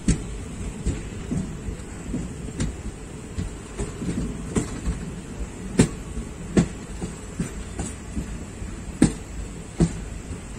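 Passenger train running, heard from aboard: a steady low rumble of wheels on rails with irregular sharp clacks and knocks, the loudest about six and nine seconds in.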